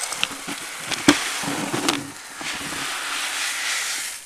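Dry grain poured into a feeder: a continuous rattling hiss with a couple of sharp knocks about one and two seconds in, stopping abruptly near the end.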